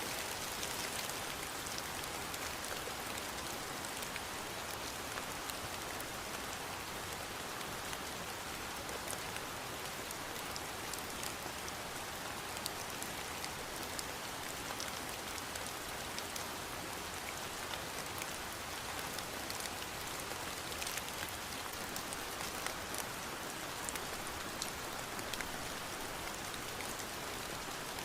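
Steady rain falling on a surface, with many small drop ticks scattered through the even hiss.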